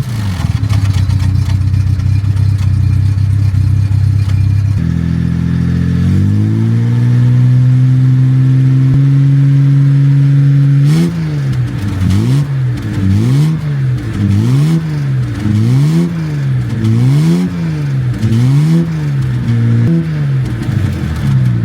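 Car engine idling, rising to a higher steady speed about five seconds in, then revved up and down in quick, even blips about once a second.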